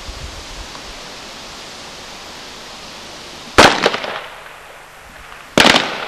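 Two rifle shots fired from the prone position, about two seconds apart, each loud and sharp with a short echo off the range.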